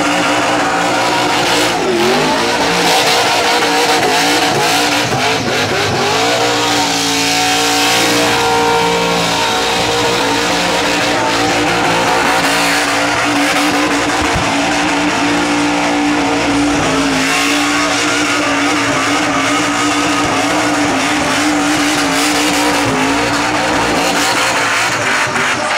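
Supercharged EFI Holden Commodore burnout car held at high revs, its rear tyres spinning and squealing on the pad. The engine note stays steady with brief dips and rises in pitch, the loudest at the start.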